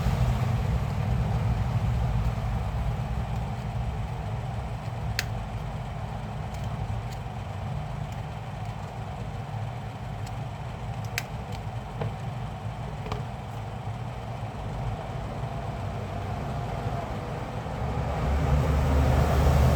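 A steady low rumble, with a few sharp clicks about five, eleven and thirteen seconds in.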